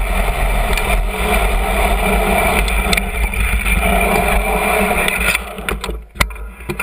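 Downhill mountain bike rolling over dirt and gravel, its knobby tyres crunching with a steady rushing noise. About five seconds in the rolling noise drops away as the bike slows to a stop, leaving a few sharp clicks and knocks.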